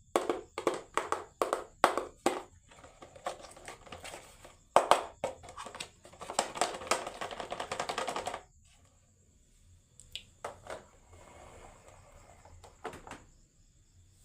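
Marbles clacking and rolling down a HABA wooden marble run: a quick series of sharp clacks, then a couple of seconds of steady rolling that stops about eight seconds in, followed by a few scattered clicks.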